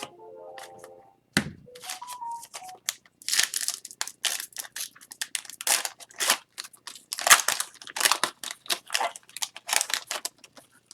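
Foil hockey card pack wrapper being crinkled and torn open, with cards handled: a dense run of sharp crackles and rustles from about three seconds in, after a brief low hum near the start.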